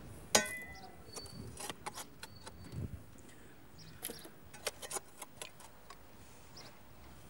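Metal spade digging into soil: a sharp clang with a brief ring about a third of a second in, then scattered light clinks and scrapes of the blade and loose soil.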